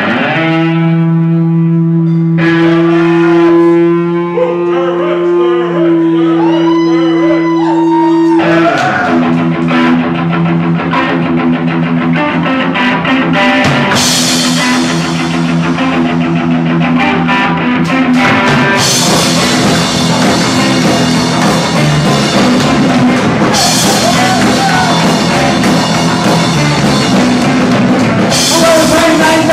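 Live punk rock band playing: distorted electric guitar holds ringing chords with wavering high notes for about the first eight seconds, then the drums and full band crash in and play on hard and fast.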